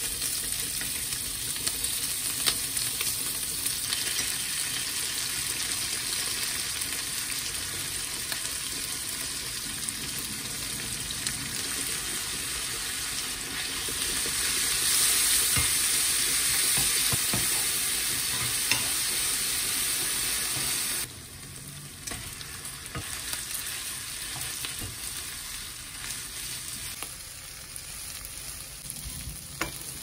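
Food sizzling in a frying pan, with a few light clicks of a utensil against the pan. The sizzle grows louder around the middle, then drops to a quieter frying sound about two-thirds of the way through.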